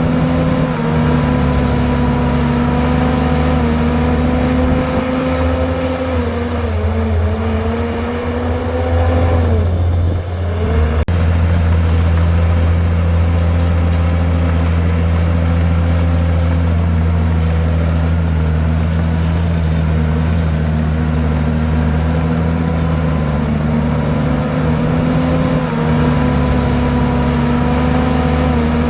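Komatsu bulldozer's diesel engine running steadily. Its pitch sags and climbs back between about six and eleven seconds in, with a sharp click near the end of the dip.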